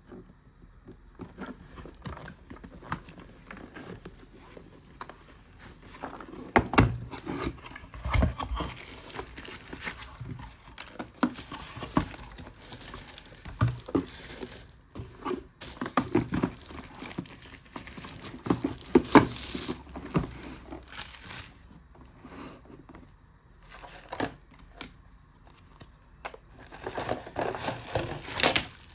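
Packaging being unwrapped and handled: crinkling and tearing of plastic and paper wrapping, with scattered irregular knocks and clicks and several louder bursts of handling.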